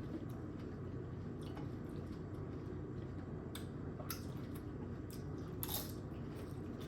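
Chewing of Doritos nachos topped with queso cheese and ground beef: soft wet mouth sounds with a handful of short crunches or smacks, the clearest about six seconds in, over a steady low background hum.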